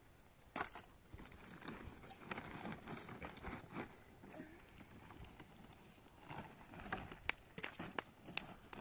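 Faint scattered clicks and light knocks of something being handled, with a few sharper clicks close together near the end.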